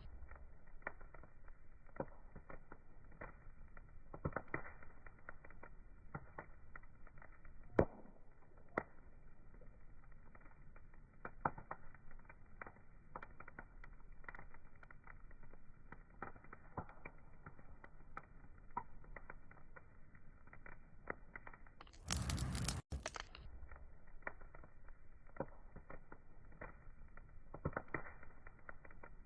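Wood fire crackling, with irregular sharp pops and snaps over a low background hiss; one pop about eight seconds in stands out. A brief, louder rush of noise comes about two-thirds of the way through.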